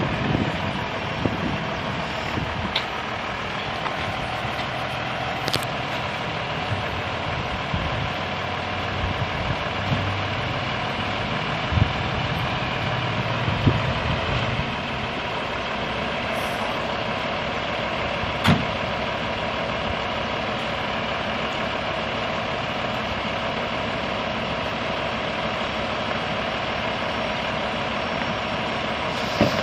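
Fire truck diesel engine running steadily at idle, with a few sharp knocks, the clearest about two-thirds of the way through.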